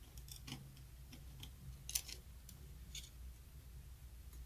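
Faint, scattered clicks and light scrapes of a knife blade working at the cork gasket between a band saw's gearbox cover and housing, with a sharper tick about two seconds in and another about three seconds in.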